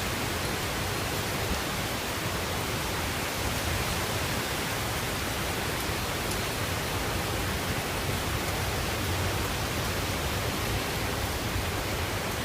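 Steady, even rushing of heavy typhoon rain and wind.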